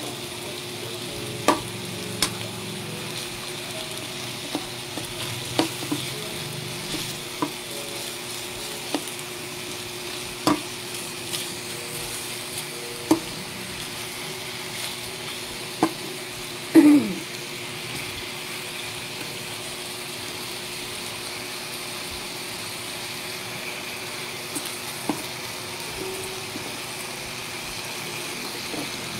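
Chicken pieces sizzling in a metal wok, with a metal ladle knocking and scraping against the pan every second or few as they are stirred. The loudest clang comes about two-thirds of the way through.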